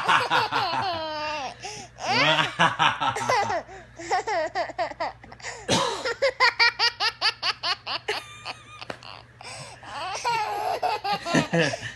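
Baby boy laughing hard in repeated bursts of high-pitched giggles and belly laughs, rising and falling in pitch, with a run of quick, rhythmic laugh pulses about halfway through.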